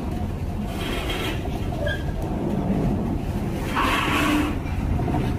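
Heavy diesel engines rumbling steadily, with a short hissing burst about a second in and a louder one around four seconds in.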